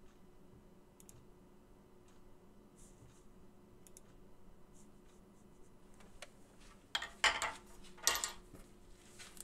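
Typing on a computer keyboard: scattered faint key clicks, then two louder flurries of clicking about seven and eight seconds in, over a faint steady hum.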